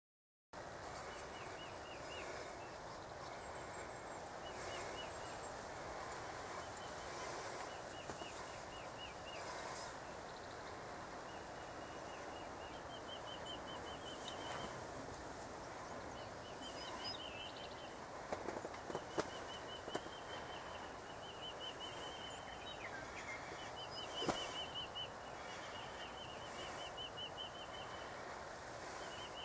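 Outdoor ambience with a high, rapid trill repeating every couple of seconds, from a small bird or insect. A few sharp clicks come about two-thirds of the way through.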